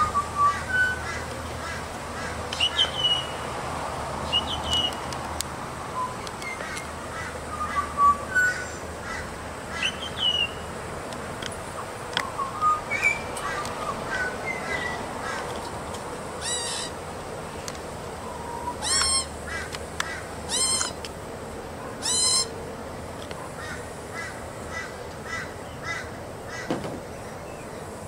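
Juvenile Australian magpie calling: a scattered run of short chirps and whistled notes, then four harsh, raspy squawks about two-thirds of the way through, followed by more short chirps.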